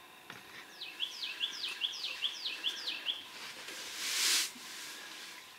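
A songbird singing a quick series of about eight whistled notes, each sliding steeply down, then stopping. About four seconds in, a short rush of hissing noise, louder than the song.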